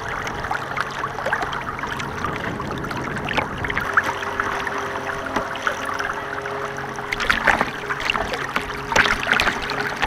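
Water splashing and churning around a radio-controlled model boat as it runs through choppy water, picked up close by its onboard camera, with a faint steady motor hum underneath. Louder splashes come about seven and nine seconds in.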